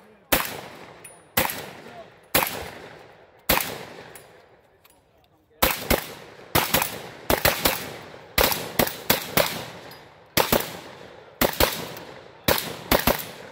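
Shotgun fired over and over in a competition stage. There are four shots about a second apart, then a pause of about two seconds, then rapid strings of shots, often in quick pairs.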